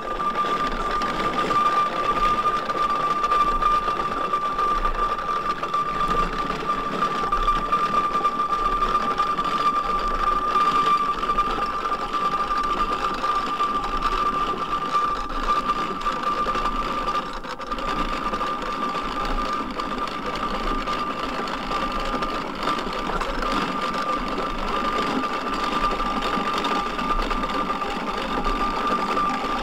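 1901 Burrell agricultural steam traction engine standing idling, its motion ticking over with a steady rhythmic mechanical clatter, and a steady high singing tone over it.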